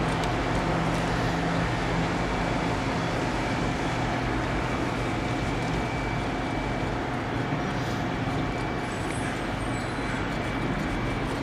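Bombardier Dash 8 Q400 twin-turboprop airliner landing: a steady rushing engine and propeller noise with a faint, even whine.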